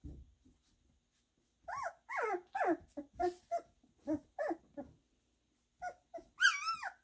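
Two-and-a-half-week-old goldendoodle puppies yipping and whining as they play-fight, a quick run of short squeaky calls from about two seconds in, then one louder, longer shrill yelp near the end.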